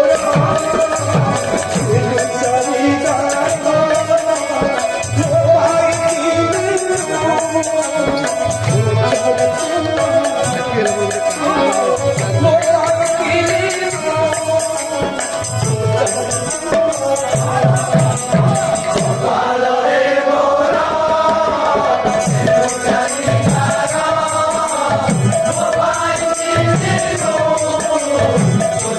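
Kirtan music: devotional singing over a steady held drone, with hand percussion and jingling rattles keeping the beat.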